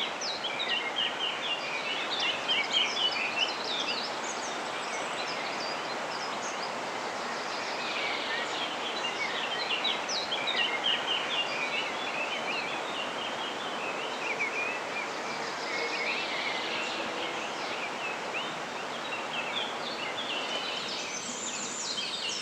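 Wild birds singing and twittering in an outdoor chorus, busier in stretches, over a steady background rush of outdoor noise.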